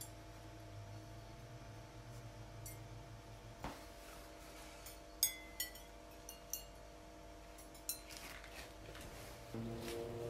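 Ceramic ware being set into a kiln while loading it for a glaze firing: a few sharp clinks of pottery, some ringing briefly, over a low steady hum. Music comes in near the end.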